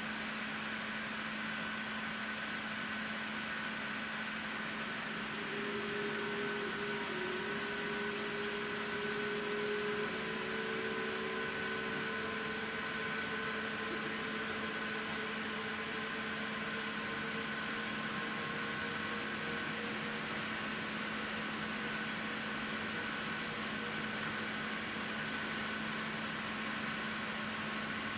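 Steady cabin noise inside an Airbus A380 taxiing on idling engines: an even hum with a constant low drone and a higher steady tone. A faint whine comes in about five seconds in, steps up slightly in pitch near ten seconds, and fades by about twenty seconds.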